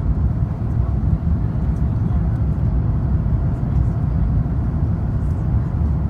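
Cabin noise of an Airbus A350-900 landing with flaps extended: a steady low rumble of airflow and engines, heard from a window seat over the wing.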